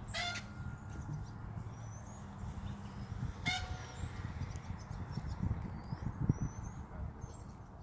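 Outdoor ambience with a low, uneven rumble on the microphone, faint bird chirps, and a single sharp thump about six seconds in.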